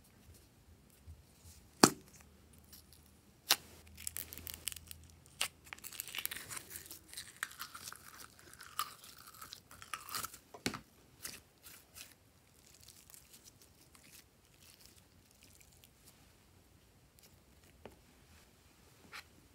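Gold glitter slime being pulled out of a plastic jar, a run of sticky crackles and small pops from about four to eleven seconds in. Before that, two sharp clicks, the louder about two seconds in.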